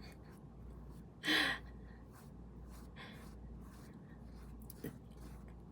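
A woman's short audible breath, like a gasp, about a second and a half in; otherwise faint room noise.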